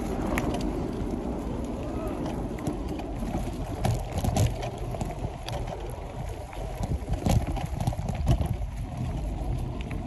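Bicycle riding over a dirt trail covered in dry leaves: a steady low rumble of tyres and wind on the microphone, with the bike rattling and knocking over bumps, loudest about four seconds in and again near seven and eight seconds.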